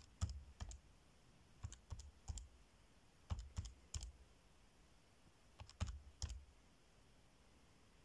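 Keys of a Casio fx-83GT Plus scientific calculator being pressed: faint plastic clicks in four quick runs of about three presses each. Each run is a number being keyed in and followed by equals.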